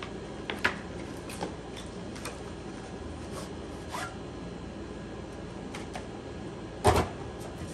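Cardboard and plastic packaging of a GoPro retail box being handled as it is opened: scattered soft scrapes and clicks as the inner tray slides out of the sleeve, with one louder knock about seven seconds in.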